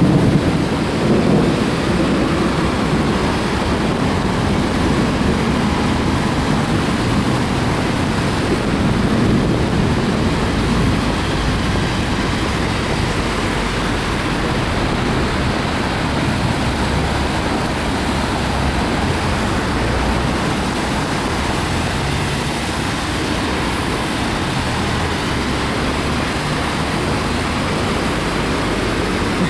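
Heavy rain with cars and a truck driving past on a wet road, tyres hissing through standing water, a steady wash of noise. A low rumble of thunder sits under it in the first few seconds and dies away.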